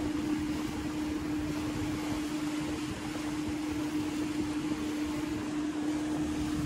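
Small boat's outboard motor running steadily at cruising speed, a constant hum, over the rush of wind and water as the hull moves along.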